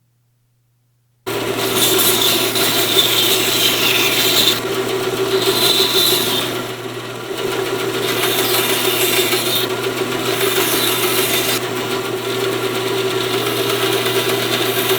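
A belt grinder's motor running steadily while steel is ground against the moving abrasive belt; the grinding noise swells and eases as the blade is pressed on and eased off. The sound cuts in abruptly about a second in.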